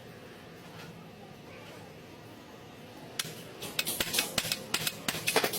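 Low steady background noise, then from about three seconds in a run of irregular sharp clicks and knocks.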